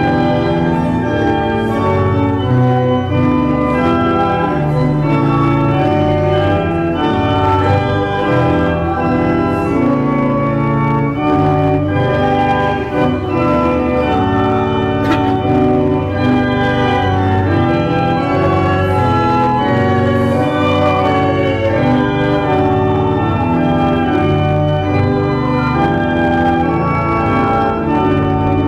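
Church pipe organ playing a hymn tune in full, sustained chords that change about once a second.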